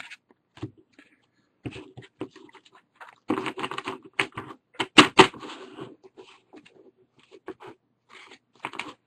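Trading cards being handled and gathered up on a table: scattered light rustling and taps, with two sharp taps close together about five seconds in.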